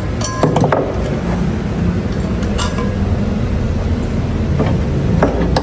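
A string of sharp metallic clinks and taps, several with a short ring, as metal tools and the internal parts of a motorcycle's rear wheel are worked loose, over a steady low rumble.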